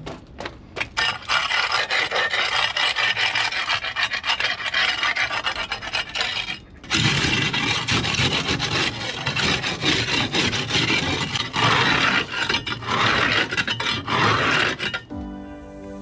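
Long-handled scraper grating barnacles off a yacht's hull and keel in quick repeated strokes, with a short pause about seven seconds in. Music comes in just before the end.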